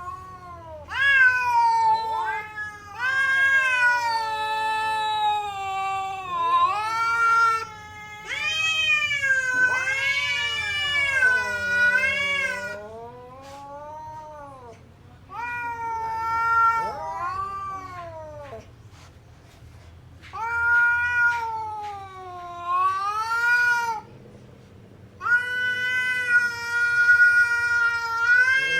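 Cats caterwauling: long, drawn-out yowls that wail up and down in pitch, in about six bouts with short pauses between. In places two voices overlap, as when two cats yowl at each other in a standoff.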